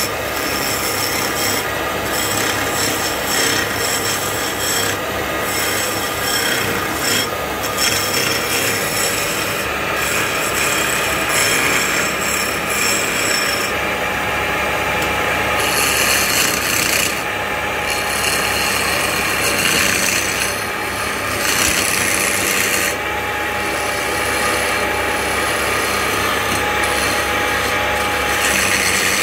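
Wooden blank spinning on a wood lathe while a hand-held turning chisel cuts into it: a continuous scraping, rasping cut that swells and eases as the tool moves along the wood, with the lathe running steadily underneath.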